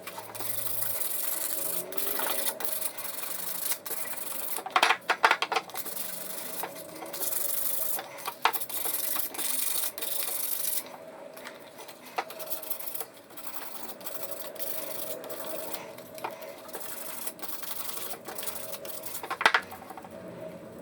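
Rubbing and scraping on a samovar's metal, over a small motor running steadily, with scattered knocks; the loudest come about five seconds in and again near the end. The hiss of the rubbing fades about halfway through.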